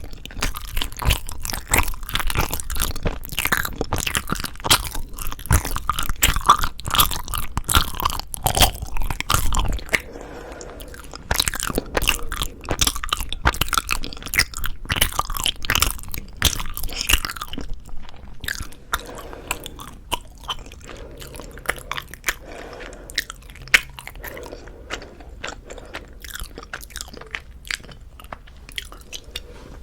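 Close-miked chewing of soft rice cake (tteok), with moist mouth clicks. It is busy and louder for about the first ten seconds, then turns quieter and sparser.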